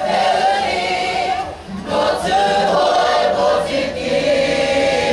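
Kapa haka choir singing a Māori waiata tira, an unaccompanied choral song, holding long notes in several voices, with a brief break for breath about a second and a half in.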